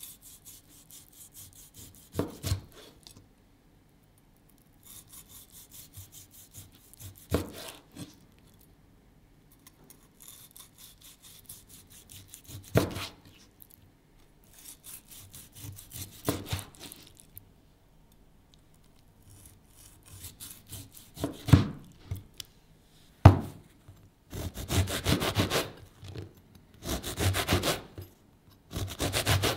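A kitchen knife sawing through slices of seared steak, each cut ending in a sharp knock of the blade on a plastic cutting board. Near the end, the knife saws through a crusty baguette with a louder, crackling rasp.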